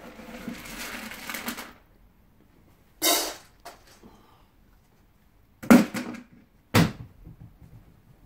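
Dry dog kibble rattling in a feeding bowl, then a short scrape and two sharp knocks.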